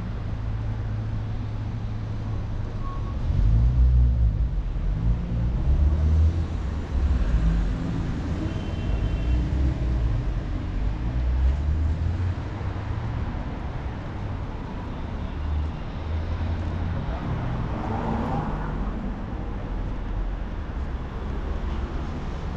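City street traffic: cars running past with a continuous low engine rumble, loudest from about three to seven seconds in.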